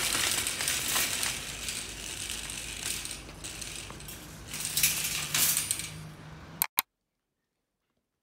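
Metal shopping trolley rattling as it is pushed along, its wire basket and wheels clattering, with a few louder clanks near the end. It cuts off suddenly.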